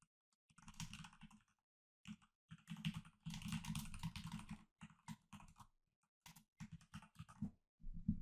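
Typing on a computer keyboard, quiet runs of quick keystrokes broken by short pauses.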